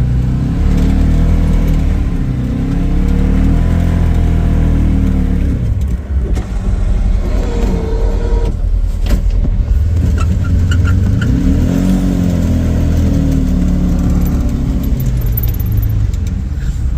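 A vehicle engine running under load as it drives, its pitch rising and falling in two long swells.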